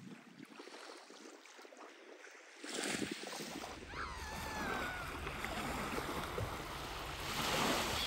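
Small waves lapping and washing onto a sandy shore of a calm sea. A low rumble joins in about halfway through. A louder wash of a wave comes near the end.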